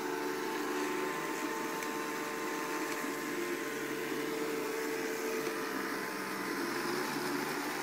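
Samsung Navibot robot vacuum cleaner running: a steady motor hum with a couple of faint steady tones.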